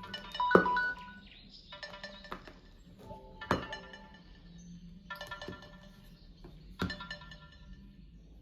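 Samsung Galaxy phone alarm and timer tones sounding at once: loud beeping that stops about a second in, then a softer ringtone phrase repeating about every one and a half seconds. Three sharp thumps fall among the tones.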